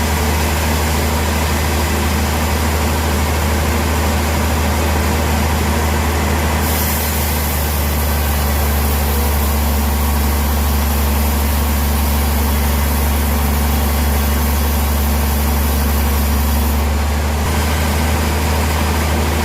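A sawmill's engine running steadily with a deep, even drone. A high hiss joins in about seven seconds in and drops away near the end.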